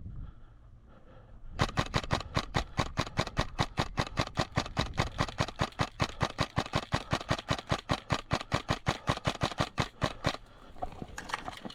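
A steady, even run of sharp mechanical clicks, about five or six a second, starting about a second and a half in and stopping after some eight and a half seconds.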